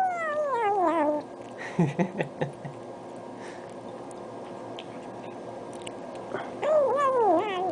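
Kitten vocalising while eating wet food: a long falling meow-like call at the start, a few short low sounds about two seconds in, and another wavering call that falls in pitch near the end.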